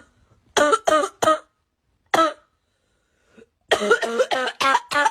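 A person coughing in repeated fits: three quick coughs, a single cough, then a rapid run of about six harsh coughs near the end.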